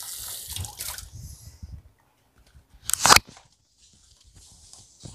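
Water running or splashing in two short spells, with a short loud clatter about three seconds in.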